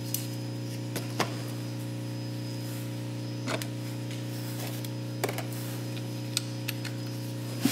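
A steady electrical hum, with a handful of short, scattered metallic clicks and taps from a socket and ratchet as the oil drain plug is put back into the oil pan.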